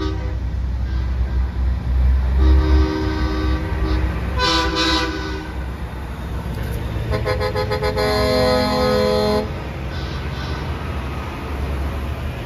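Semi-truck air horns blowing over the low rumble of diesel engines. There is a short blast about two seconds in and another near five seconds. Then comes a rapid stuttering series that runs into a longer, lower blast, which cuts off near nine and a half seconds.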